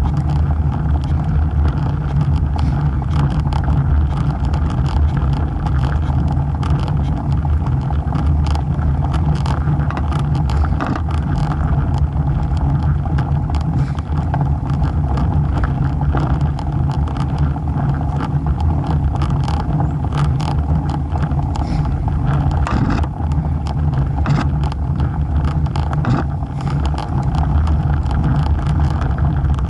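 Road bike riding on a paved road, with a deep steady rumble of wind buffeting and road vibration on the bike-mounted camera's microphone. Frequent small ticks and rattles are scattered through it.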